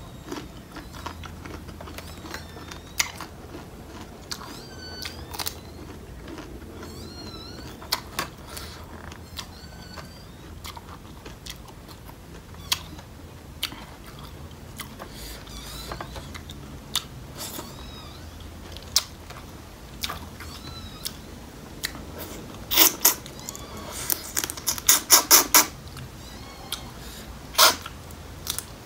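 Close-up eating sounds of someone chewing blue swimming crab from a papaya salad: crab shell cracking and crunching between the teeth, with wet sucking and lip smacking as fingers are sucked clean. Sharp cracks come at irregular intervals, with a quick flurry of loud crunches about three-quarters of the way through.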